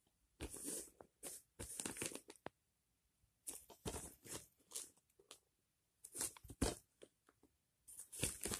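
Plastic shrink-wrap on a DVD case crinkling as the case is picked up and turned in the hand, in several short spells of rustling with brief pauses between.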